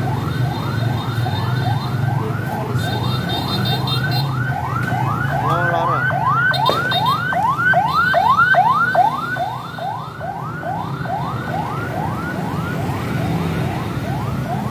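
Vehicle siren in a fast yelp, a rapid run of rising sweeps about two or three a second, over steady traffic and engine noise. It grows louder to a peak about eight to nine seconds in as it comes close, then eases back.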